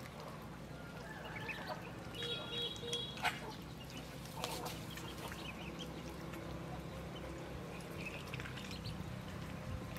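Ducklings peeping, short high cheeps scattered throughout, with one longer call about two to three seconds in, while they paddle in a tub of water.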